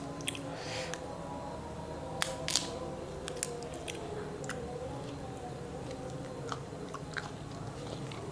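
Matoa fruit being cracked open and peeled by hand: a scattering of short sharp cracks and clicks from the brittle rind, the loudest pair about two seconds in.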